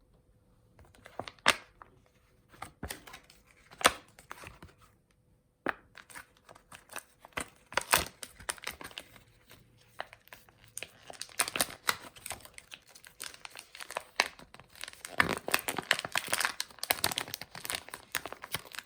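Crinkling and tearing: irregular rustles and sharp crackles, growing busier and louder in the last few seconds.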